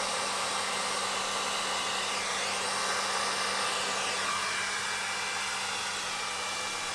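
Handheld blow dryer running steadily: an even rush of air with a constant motor hum.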